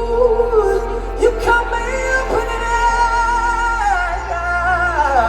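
Live concert music: a singer holds long notes over band accompaniment with steady bass notes beneath.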